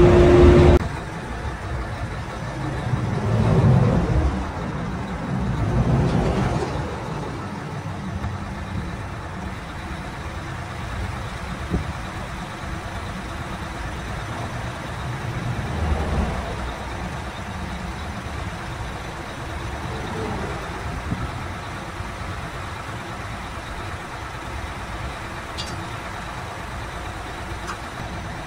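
Heavy truck's diesel engine running steadily at idle, with a few brief swells in level, while jumper cables are connected to the other truck's dead battery.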